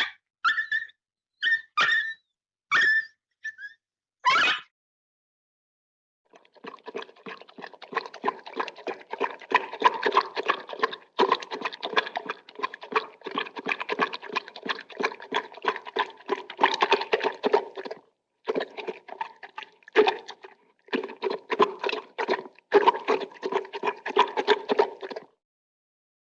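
A dog whimpering: six short high-pitched whines in the first few seconds, some sliding down in pitch. After a pause comes a long run of rapid clicking sounds, broken by two short gaps.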